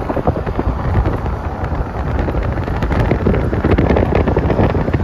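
Road and engine noise from a vehicle moving at speed, with wind buffeting the microphone, swelling a little partway through.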